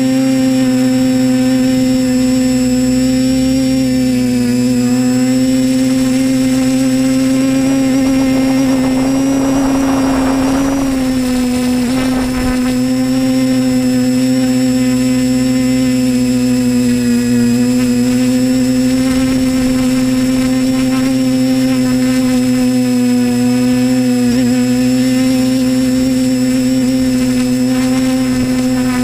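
Disco Pro multirotor's electric motors and propellers humming steadily in flight, heard from the camera on board, the pitch dipping slightly a few times as the throttle changes. A short rushing noise, like wind, rises about ten seconds in.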